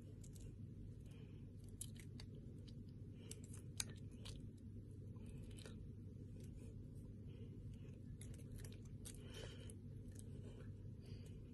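Faint, scattered clicks and rustles from a person signing, hands brushing and tapping together, over a steady low room hum. One sharper click comes about four seconds in.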